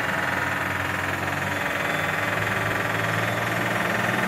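GE H80 free-turbine turboprop engine of a DHC-3 Otter running just after its start, heard inside the cockpit: a steady high turbine whine over a low drone, growing slightly louder.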